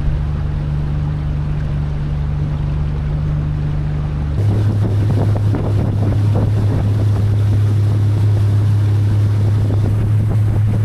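Motorboat engine running steadily under wind and water noise. About four seconds in the engine note drops lower and the overall noise gets louder.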